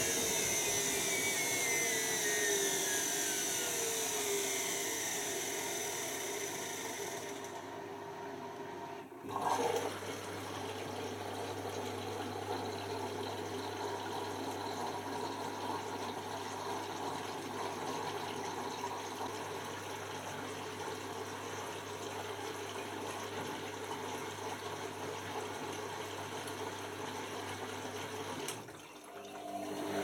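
Beko WM5100S washing machine: a motor whine falls in pitch as the drum slows over the first few seconds. About nine seconds in, water rushes in with a steady hum to fill the drum for the final rinse, and it cuts off a little before the end.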